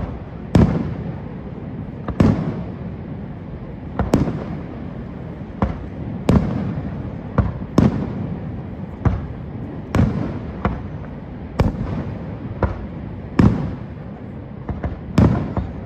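Fireworks display: aerial shells bursting in a steady string of sharp bangs, about one a second, each trailing off in a short echo, over a continuous low rumble.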